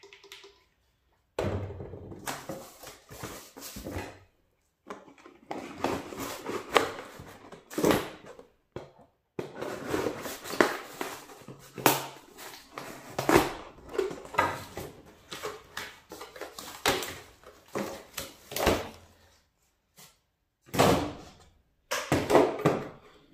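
Cardboard packaging scraping and rustling, with irregular knocks and clicks, as an RC car is worked out of its cardboard box insert and set down on a table.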